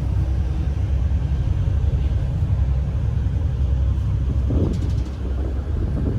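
Steady low rumble of a moving vehicle, heard from aboard.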